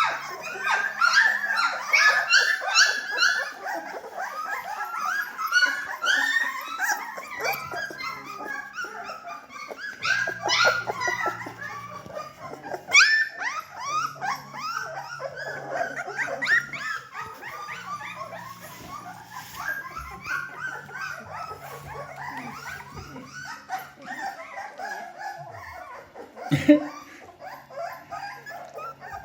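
A litter of three-week-old Bernedoodle puppies whimpering and yipping, many short high calls overlapping without a break. One louder, lower call falls in pitch near the end.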